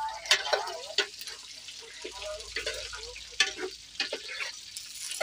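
A metal spoon scraping and knocking against an aluminium pot at irregular intervals as chunks of aubergine and potato are stirred into browned onions, with the frying sizzling under it.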